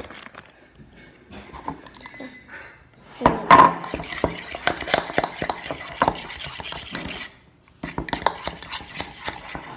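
A utensil stirring and scraping glue slime in a container, a quick run of clicks and clinks as the detergent activator is mixed into the glue. The stirring is light for the first few seconds, gets busy after about three seconds, stops briefly, then starts again.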